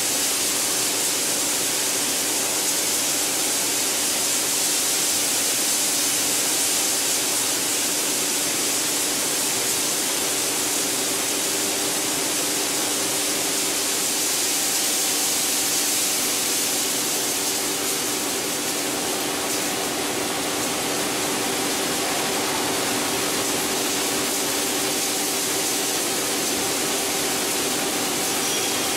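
PET bottle washing line machinery running: a steady hiss with a low hum beneath it, and a faint higher tone joining about halfway through.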